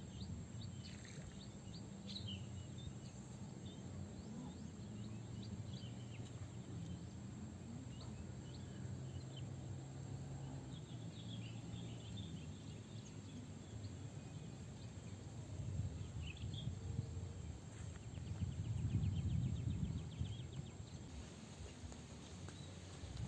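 Birds chirping and calling, scattered short notes, with a brief fast trill about two-thirds through, over a steady low rumble that swells for a couple of seconds about three-quarters of the way in.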